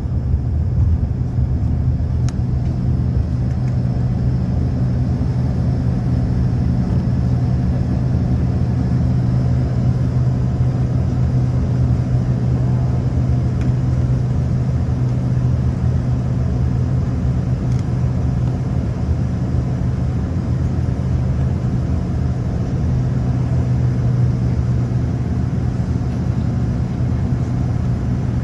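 Turboprop airliner engines at takeoff power, heard from inside the cabin: a loud, steady drone with a strong low hum, through the takeoff roll and climb-out.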